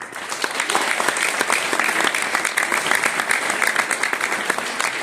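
Audience applauding, many hands clapping at once; the applause starts abruptly and stays steady.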